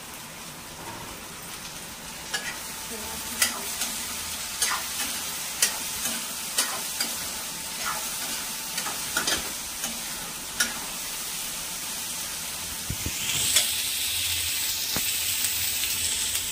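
Chopped mixed vegetables sizzling as they fry in oil in a steel kadhai, stirred with a metal ladle whose edge clicks against the pan about once a second. The sizzle gets louder near the end.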